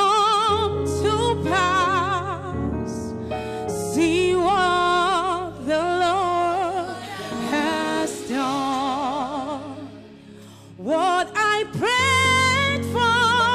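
A woman singing into a microphone with strong vibrato over sustained instrumental backing. The voice drops away briefly about ten seconds in, then comes back loudly.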